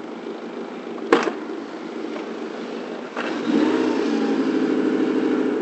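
Suzuki DF four-stroke outboard engine running, with a sharp click about a second in. About three seconds in it speeds up and gets louder as the throttle is opened.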